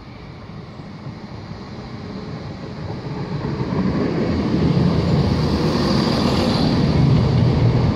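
Class 170 Turbostar diesel multiple unit arriving at a platform. Its engine and wheel noise grow steadily louder as it draws in and passes close by, and are loudest in the second half.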